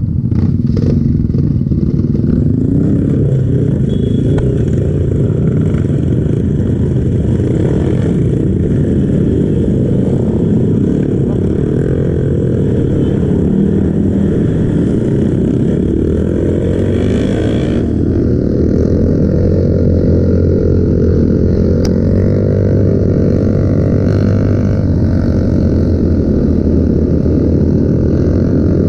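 Kawasaki KLX trail bike's single-cylinder four-stroke engine running through its stock exhaust while being ridden off-road, the engine pitch rising and falling continually with the throttle.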